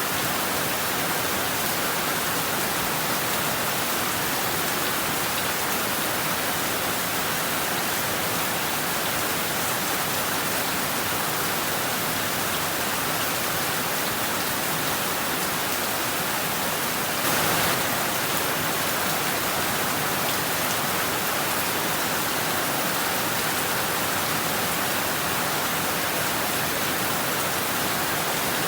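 Heavy rain falling steadily, a dense even hiss, with one brief louder burst a little past halfway through.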